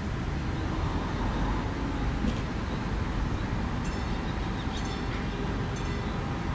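Steady low outdoor rumble, with faint short high-pitched chirps three or four times in the second half.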